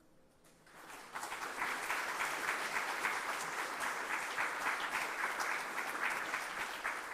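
A room of people applauding, swelling about a second in and holding steady, then thinning out near the end.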